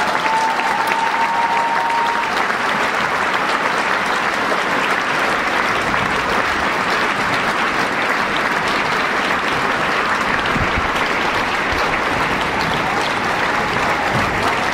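Audience applauding steadily, with a thin steady tone in the first two seconds.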